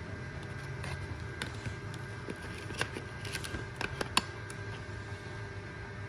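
Scattered light clicks and taps of cardboard and plastic lighter gift boxes being handled, over a steady low hum. The sharpest click comes a little after four seconds in.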